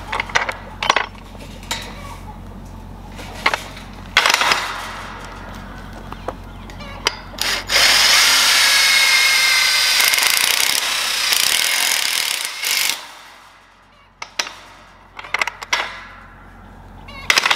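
Power drill boring into the thick metal of a tube-gate latch: a few short starts and knocks, then one long steady run of about five seconds with a high whine, starting about eight seconds in.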